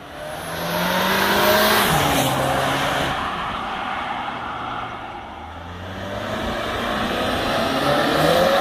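2019 Jetta GLI's turbocharged 2.0-litre four-cylinder, with a CTS Turbo catted downpipe and stock exhaust, accelerating hard at full throttle: the engine note climbs, drops sharply at a DSG upshift about two seconds in, then climbs again and is loudest as the car passes near the end.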